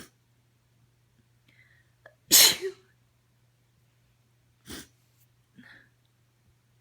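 A woman's allergy sneezes: one loud sneeze about two and a half seconds in, then a shorter, quieter sneeze a couple of seconds later.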